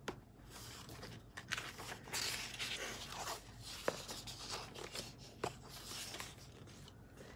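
Pages of a paperback colouring book being turned by hand: soft paper rustling with a few light taps and flicks.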